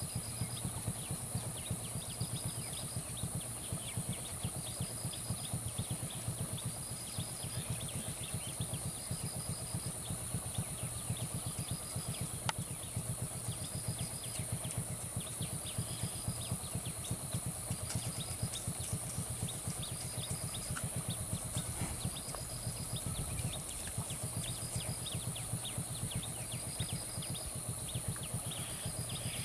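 An engine idling steadily with a low, even hum. A steady high hiss runs over it, and a short high chirp repeats about every second and a half.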